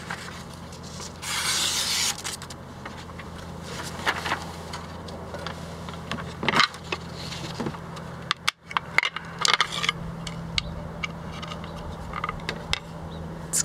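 A Japanese kitchen knife, a Sugimoto slicer, slicing through a held sheet of printer paper. The cut is a brief hissing slice about a second in, followed by further shorter cuts and paper rustling and handling.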